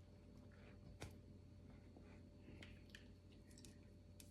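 Near silence: low room hum with a few faint soft clicks, one about a second in.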